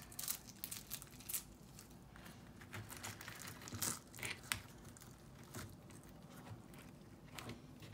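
Crunchy slime squeezed and worked by hand, giving faint, scattered crackles and small pops.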